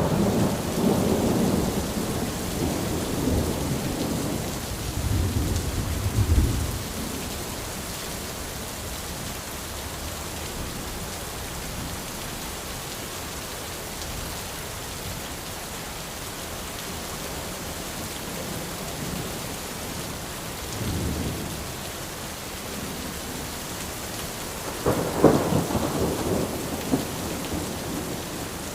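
Steady rain falling on an umbrella, with rolls of thunder over the first several seconds, a short rumble about two-thirds of the way through, and a louder roll near the end.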